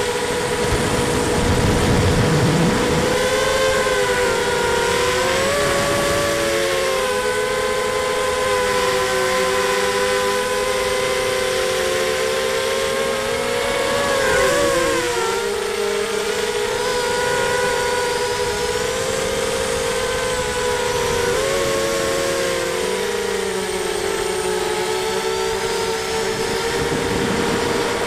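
Racing quadcopter's brushless motors and 5x4 props whining as it flies, heard from its onboard camera: a steady buzzing whine of several close pitches that dip and rise together several times as the throttle changes. A low rumble joins it in the first few seconds and again near the end.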